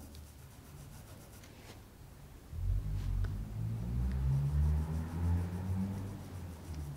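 Faint rubbing of a small paintbrush stroking paint into fabric. From about two and a half seconds in, a low rumble with a wavering hum comes in and fades out near the end.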